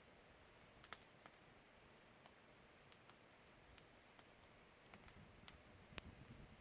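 Faint, irregular pops and crackles from a firewood fire burning in an ondol firebox, a dozen or so scattered sharp clicks over a low hush, a little busier near the end.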